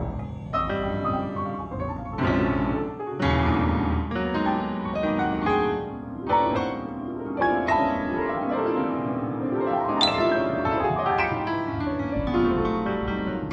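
Piano music: a run of struck notes and chords, each fading after it is played, with one brighter, sharper strike about ten seconds in.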